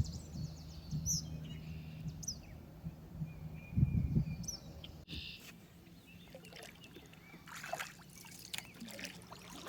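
Small birds chirping with a few short high calls, over a faint steady low hum in the first half. Splashy water sounds, like a kayak paddle dipping, come in near the end.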